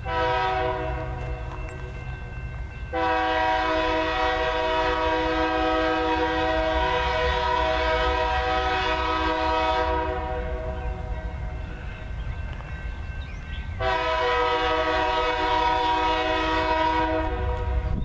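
Air horn on a Union Pacific GE C44-9W locomotive sounding long blasts for a grade crossing. A softer blast at the start runs straight into a loud one of about seven seconds; after a pause of about four seconds comes another of about three seconds. The low rumble of the approaching train runs underneath.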